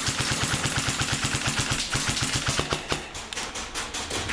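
Airsoft electric gun firing on full auto: a rapid, even stream of about a dozen shots a second that gives way to scattered shots about three seconds in.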